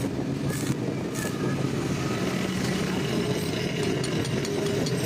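A motor or engine running steadily, a low mechanical hum.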